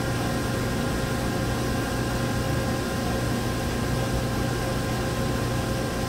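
1997 Chevrolet pickup's 5.7 Vortec V8 idling steadily with a low hum, still cold and below operating temperature, its computer running in open loop.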